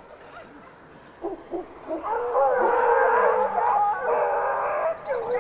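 A pack of hare hounds giving tongue while hunting. A few short yelps come about a second in, and from about two seconds many hounds bay together in a dense, continuous chorus.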